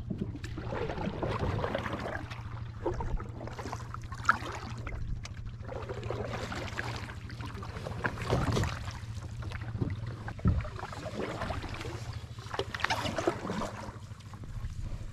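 Canoe paddles dipping and pulling through calm water, irregular swishes and splashes every second or two, with a couple of sharp knocks, over a low steady hum.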